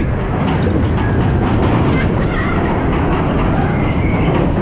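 Big Thunder Mountain Railroad's mine-train roller coaster running along its track at speed: a loud, steady rumble of the cars' wheels with a rattling clatter.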